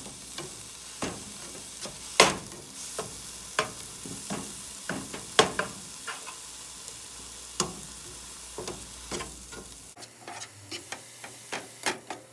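Spinach sautéing in hot oil in a pan with a steady sizzle, while a utensil stirs it with irregular sharp scrapes and taps against the pan. The loudest knocks come about two seconds in and at about five and a half seconds.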